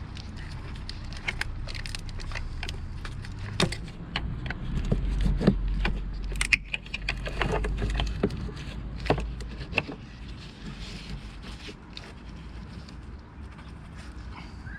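Scattered metallic clinks and knocks of hand tools and engine parts being handled, with a low rumble swelling in the middle.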